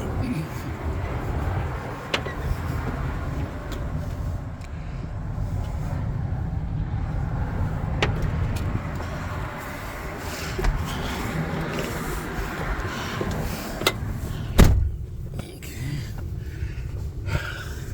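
Ford 5.4-liter V8 pickup truck running, heard from the cab as a steady low rumble, with the engine running well on its newly replaced water pump. A few sharp clicks break through, and there is a heavy thump about fourteen seconds in.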